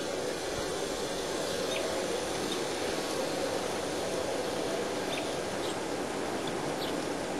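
A 1:29-scale Aristo-Craft E8 model passenger train running steadily along garden track, its motors and wheels making an even rolling noise. A few faint bird chirps sound over it.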